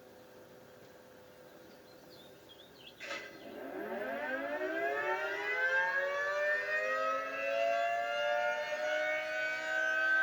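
A Federal Signal 3T22 electromechanical outdoor warning siren switching on about three seconds in with a sharp click. It winds up, several tones at once rising in pitch together as the rotors spin up, and it grows louder as it nears full speed toward the end.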